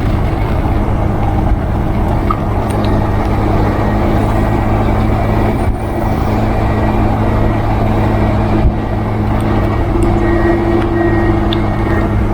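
Motorcycle running steadily at road speed, its engine hum under constant wind and road noise; a higher engine tone rises briefly near the end.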